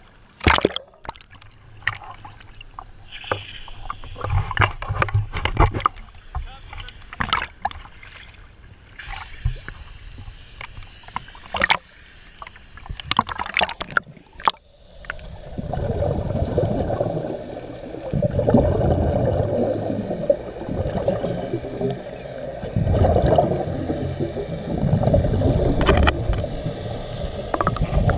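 Water slapping and splashing against a camera housing at the surface, with sharp knocks. About halfway in the camera goes under, and scuba regulator exhaust bubbles come in muffled, rushing bursts every two to three seconds with each exhaled breath.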